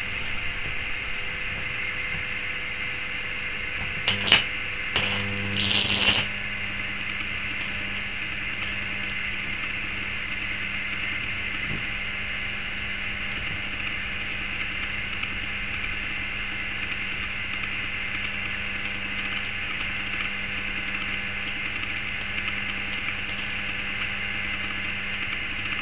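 Flyback transformer driven by a ZVS driver drawing high-voltage arcs: two loud crackling bursts, a short one about four seconds in and a longer one of about half a second near six seconds, over a steady hum from the rig. After these first two arcs something in the ZVS broke, the builder says, and only a weak arc follows while the hum runs on.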